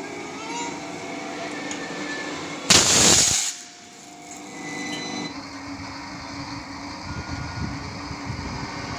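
High-voltage substation isolator closing with no load on the line, giving a sudden loud burst of arcing and sparking about three seconds in that lasts under a second, over steady outdoor background noise.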